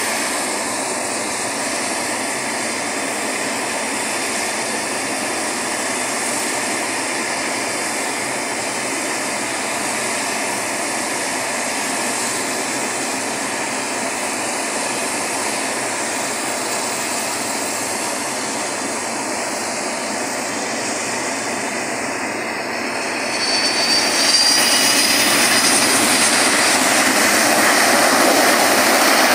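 Boeing 737-200's Pratt & Whitney JT8D turbofan engines landing, a steady jet noise that swells louder about three-quarters of the way through as the airliner touches down and rolls along the runway, with a high turbine whine over it.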